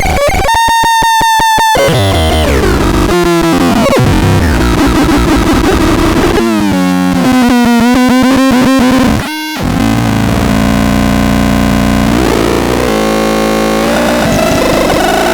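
Tenechlot electronic synthesizer putting out harsh, distorted buzzing tones that jump and slide in pitch, with stretches of fast stuttering pulses and a brief drop-out about nine seconds in.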